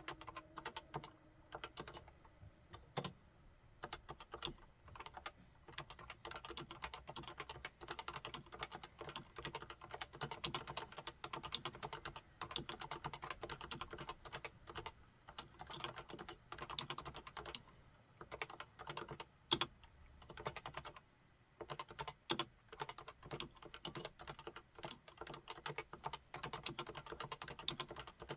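Realforce 101 full-size keyboard with Topre electrostatic capacitive switches being typed on continuously, a dense run of keystrokes with a couple of brief pauses past the middle.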